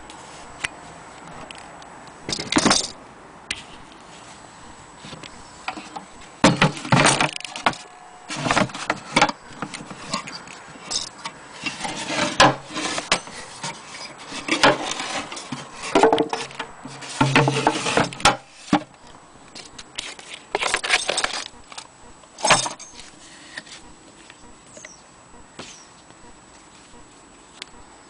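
A small wooden drawer and loose metal sewing-machine attachments being handled: irregular rattles, knocks and jangles in short bursts, dying down near the end.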